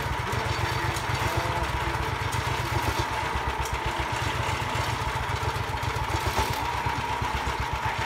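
The engine of a portable sawmill runs steadily with a rapid low pulsing, a thin high-pitched tone sounding over it.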